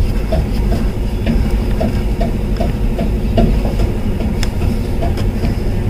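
A steady low rumble of running machinery with a regular tick about two and a half times a second, and a single sharp metallic click about four and a half seconds in.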